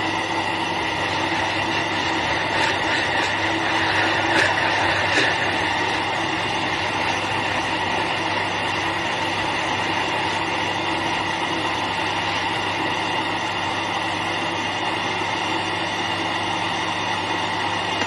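Electric blender motor running at a steady speed, blending avocado, banana and milk into juice, with a few light knocks early on. It cuts off suddenly at the end.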